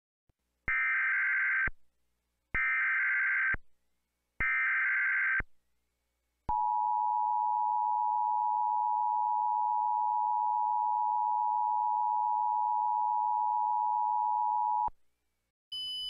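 Emergency Alert System tones: three one-second bursts of SAME header data, each a harsh digital warble, about a second apart, then the two-tone EAS attention signal held steady for about eight seconds before it cuts off.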